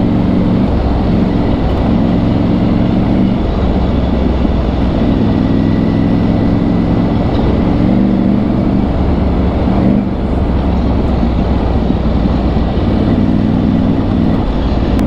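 Triumph Tiger 900 Rally's three-cylinder engine running under way, its note strengthening and easing every few seconds. Steady wind and riding noise run underneath.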